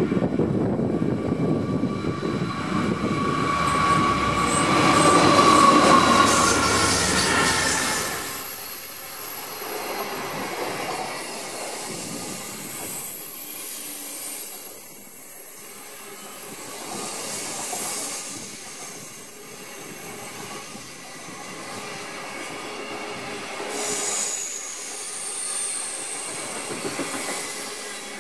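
Indian Pacific passenger train passing, led by NR-class and DL-class diesel-electric locomotives. The locomotives' engines run loud, peaking about six seconds in, and drop away about eight seconds in. The carriages then roll by with a high, thin wheel squeal that fades and comes back near the end.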